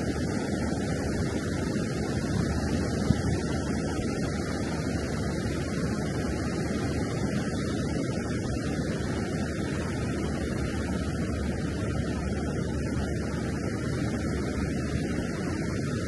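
Steady wash of ocean surf breaking along a sandy beach, with wind on the microphone.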